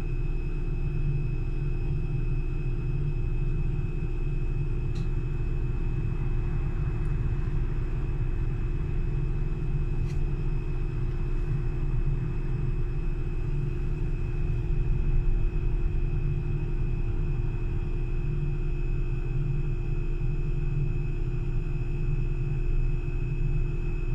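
Solaris Urbino 12 Hydrogen fuel-cell electric bus running: a steady low rumble with a constant high whine and a lower hum above it, holding the same pitch throughout.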